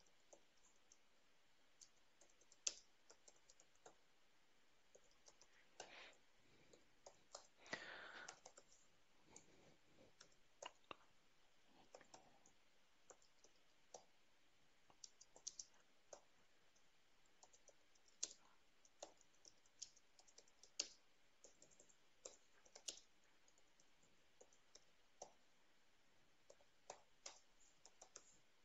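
Faint, irregular keystrokes on a computer keyboard as code is typed, a few keys struck harder than the rest.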